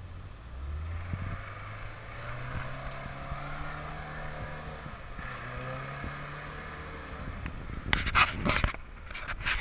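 Toyota pickup's engine revving while the truck is driven through a deep muddy pond: the revs climb about a second in, hold, dip and rise again midway, then ease off. Two short loud rough noises come near the end.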